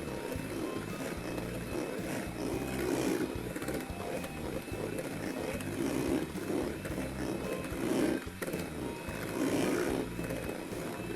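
Electric mixer running, beating egg yolks into the cake batter: a steady motor whine over the churning of the beaters, which swells every second or two. The whine stops near the end.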